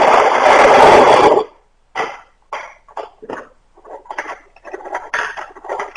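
A loud rushing, scraping noise for about a second and a half, then a run of irregular small knocks and clicks as a wooden stick is fitted and clamped in a small bench vise on a wooden table.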